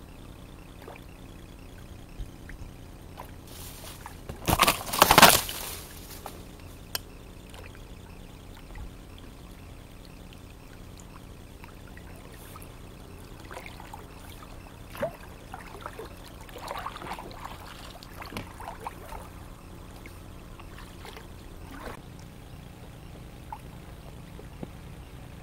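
Water splashing and trickling around a paddled inflatable kayak, as from the paddle blade dipping and dripping. One loud splash about five seconds in, and a few quieter splashes and knocks later.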